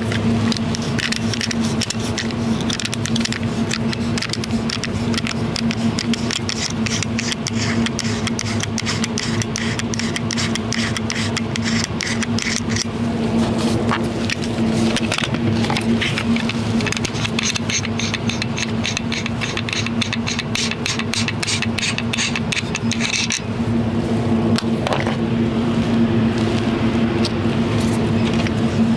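Steady droning hum of an indoor shooting range's ventilation system, holding one pitch. Over it comes a dense run of small clicks and scrapes from hands handling the pistols and a suppressor on a wooden bench, thinning out about 23 seconds in.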